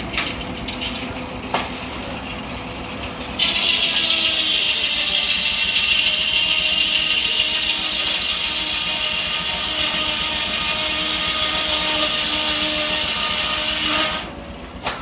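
Belt-driven circular sawmill blade, powered by a steam traction engine, running free at first and then cutting through a log: about three seconds in a loud high-pitched rasping whine starts suddenly, holds for about ten seconds and falls away near the end as the cut finishes.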